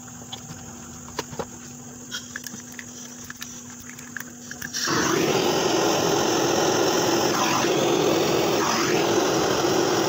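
Hose-fed gas torch opened up about halfway through, its flame rushing with a loud, steady hiss as it heats the refrigerator compressor's charging pipe to seal it off. Before it starts there is a low steady hum and a few light clicks.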